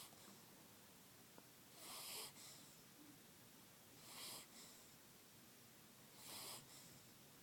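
Faint snoring breaths: three soft, hissy snores about two seconds apart.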